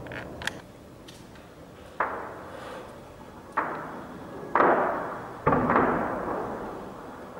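Combat gunfire: about five sharp shots or blasts, each trailing off in a long echo, the last two coming close together.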